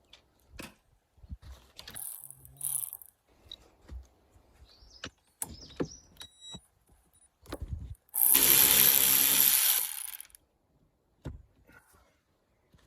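A ratchet undoing the 13 mm wiper arm nuts, with scattered clicks and knocks of tool handling. About eight seconds in there is a loud stretch of fast ratcheting lasting about two seconds.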